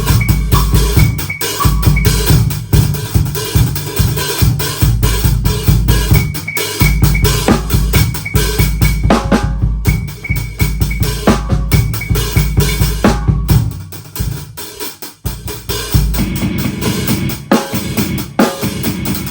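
Drum kit played in a dense, driving pattern with heavy bass drum and snare and rimshot hits, mixed with electronic sound effects from a hybrid setup. The playing thins out about fourteen seconds in and comes back in full about two seconds later.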